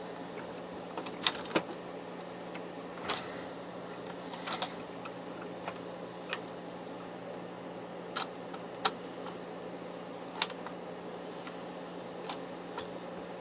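Screwdriver turning and clinking on screws in the plastic and metal chassis of an HP DeskJet D1660 inkjet printer: scattered sharp clicks and light rattles, a second or two apart, over a steady low hum.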